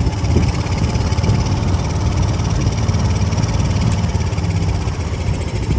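Small boat's engine running steadily.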